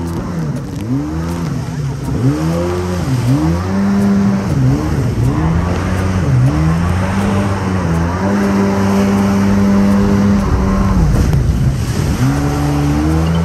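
Jet ski engine running hard over waves, its pitch dipping and climbing back about once a second as the throttle and hull bounce. It holds a steady note for a couple of seconds past the middle, then dips and rises again near the end, with water rushing and spraying past the hull.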